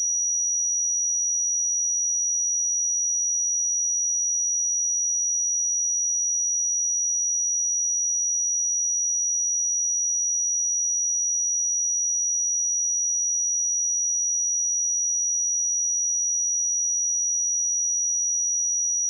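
A pure 5808 Hz sine-wave test tone, a single steady high-pitched tone held unchanged at constant loudness.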